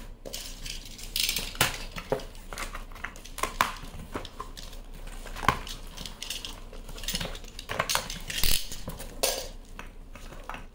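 Hard items clinking and knocking against each other as a cardboard box is unpacked by hand, with a few short bursts of rustling packaging.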